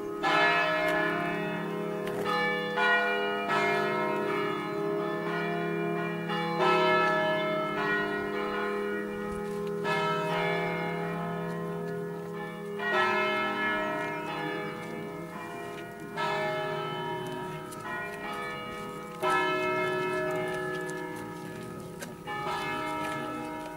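Church bells from a five-bell set in E-flat, cast by Pruneri of Grosio, ringing: a fresh bell stroke every one to three seconds over a long, lingering hum of the bells still sounding.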